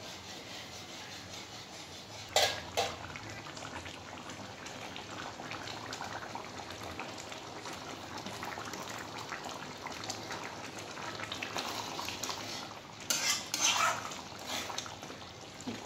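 A metal spoon stirring chicken curry in a metal kadai, with a sharp clink against the pan about two and a half seconds in and a few scrapes near the end, over a soft steady simmering hiss.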